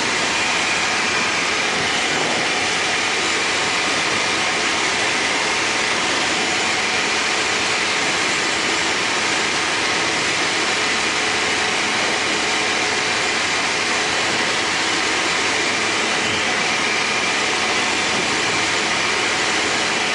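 Cabin noise of a Tecnam P92 Eaglet light aircraft in cruise: a steady engine and propeller drone mixed with rushing air, unchanging in pitch and level.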